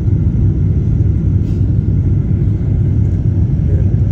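Steady low rumble of a jet airliner in flight, heard from inside the passenger cabin: engine and airflow noise.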